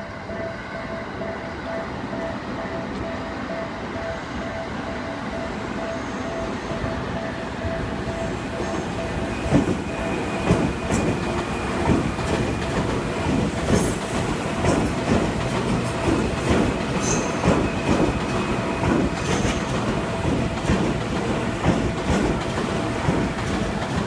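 Japanese railroad crossing warning bell ringing in a steady pulsing 'kan-kan'. From about nine seconds in, an electric commuter train rolls through the crossing, its wheels clacking rhythmically over the rail joints, with a faint squeal of wheels on rail.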